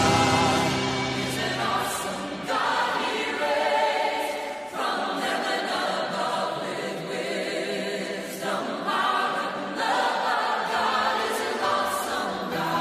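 A choir singing a church hymn in sung phrases, with short breaths between them.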